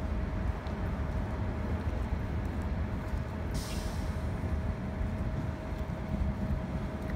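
Diesel transit bus rumbling as it rolls slowly into a stop, with a steady whine throughout. A little after halfway comes a short hiss of air, typical of the bus's air brakes.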